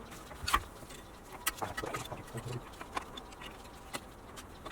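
Scattered metallic clicks and knocks of parking brake shoes and their return-spring hardware being worked into place on the rear hub, the sharpest one about half a second in.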